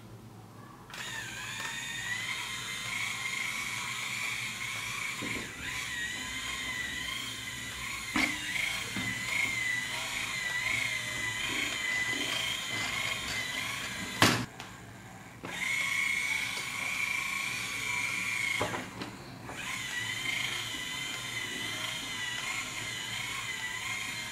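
Small battery-powered toy motor of a building-block truck running with a steady high whine as it turns the belt drive, switched on about a second in. It stops briefly twice, the first time right after a sharp click.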